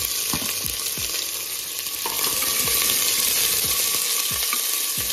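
Chopped onions sizzling in hot mustard oil in a steel pressure cooker, with a steady hiss, while a metal ladle stirs them.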